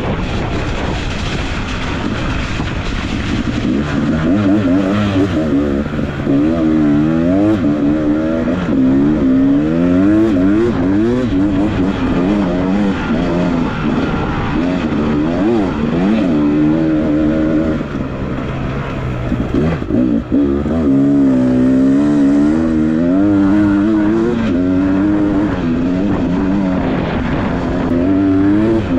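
Dirt bike engine under way, revving up and down continually with its pitch rising and falling every second or so.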